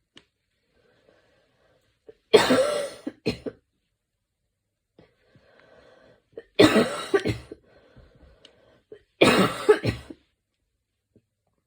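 A woman coughing hard in a fit: three bouts of several harsh coughs each, a few seconds apart, with near quiet between them.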